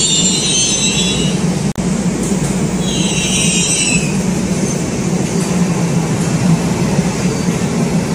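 Electric subway train running, with a steady rumble and high-pitched wheel squeal at the start and again from about two and a half to four seconds in. The sound cuts out for an instant just under two seconds in.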